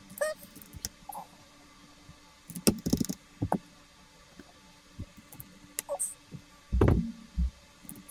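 Plastic keycaps being pressed back onto a mechanical keyboard's switches and the keyboard handled: scattered clicks and knocks, the loudest about three seconds in and again around seven seconds.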